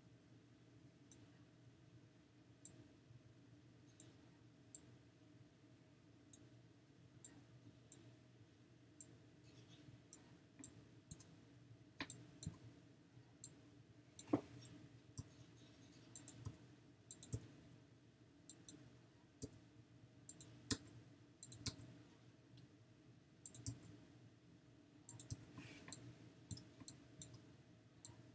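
Quiet, sparse clicks of computer drawing input, coming irregularly, about one a second at first and busier in the second half, over a faint steady hum.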